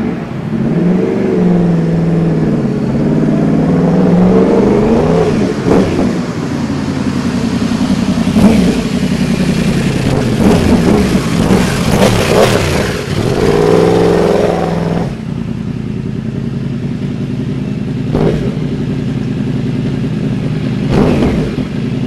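Yamaha YZF-R1's crossplane-crank inline-four running through a Yoshimura exhaust as the bike comes in, revving with repeated rises and falls in pitch and at its loudest about twelve seconds in. About fifteen seconds in it settles to a steadier, quieter note, with a few sharp cracks along the way.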